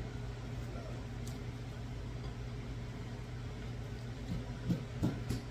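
A steady low mechanical hum in the room, with a few faint soft sounds near the end as fry bake is torn apart by hand.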